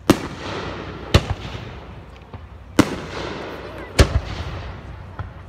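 Aerial firework shells bursting overhead: four sharp bangs at uneven gaps of one to one and a half seconds, each trailing off over a second or so.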